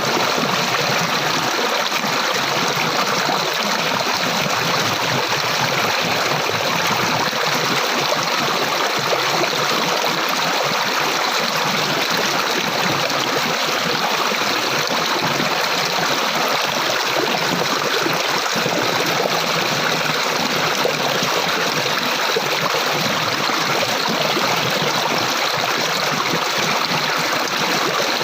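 Flowing water, a steady stream running and trickling without break.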